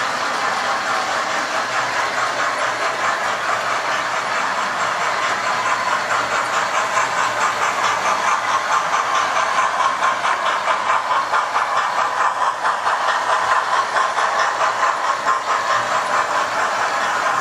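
Model railway locomotives running round the track: electric motors whirring and wheels clicking over the rail joints in a fast, even rhythm that grows louder from about six seconds in, as a green LNER express locomotive model passes close by.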